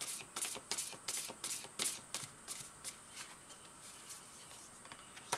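A tarot deck shuffled by hand: a quick run of soft card strokes, about three a second, that fades out a little after three seconds in.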